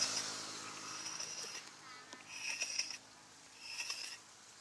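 Quiet outdoor ambience. A short, high two-pitched animal call sounds twice in the second half, about a second and a quarter apart. A scraping hiss fades out in the first second.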